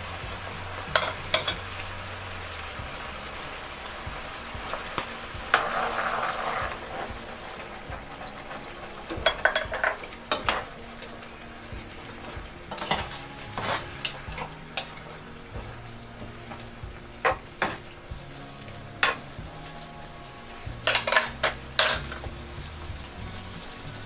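Beefsteak sauce simmering and sizzling in a non-stick frying pan while a spoon stirs in cornstarch to thicken it. Clusters of sharp metal clinks of the spoon against the pan and a small bowl come every few seconds.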